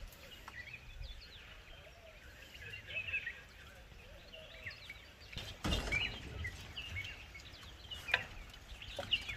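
Small birds chirping repeatedly in the background, with a brief bump a little past halfway and a lighter one near the end.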